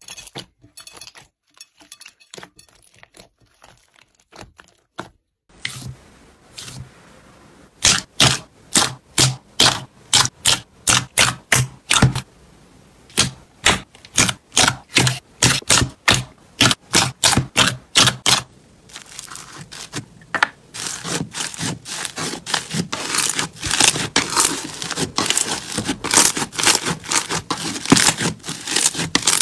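Crunchy slime being pressed and squeezed by hand, crackling and popping. There are faint crackles at first, then sharp crunches at about two a second, turning into a denser, almost continuous crackle in the last third.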